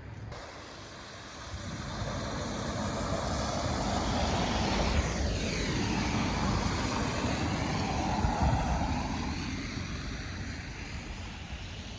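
A vehicle passing by: a rush of noise that swells over a few seconds, is loudest in the middle with a falling sweep as it goes past, and then fades away.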